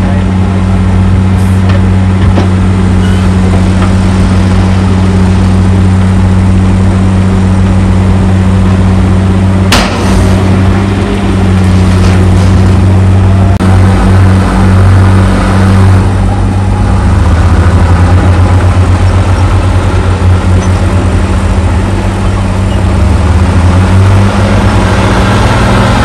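Heavy diesel engines of crawler bulldozers and a dump truck running steadily with a deep, continuous drone, and a single sharp click about ten seconds in.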